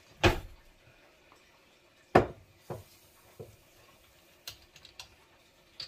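Kitchen utensils and containers being handled and set down: two sharp knocks about two seconds apart, followed by a few lighter taps.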